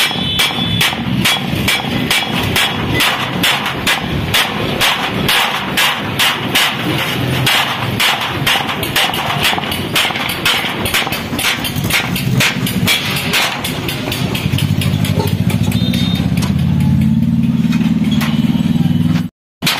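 Steady, rapid hammer blows on a galvanized steel rolling-shutter slat resting on an iron plate, about three strikes a second, as the slat is worked for a centre lock. The blows fade out a few seconds before the end, and a steady low engine hum builds up in their place.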